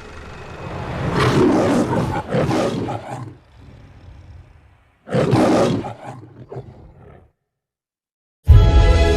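The MGM lion's roar from the studio logo: a roar in several pulses, then a second, shorter roar that dies away. Loud music starts suddenly near the end.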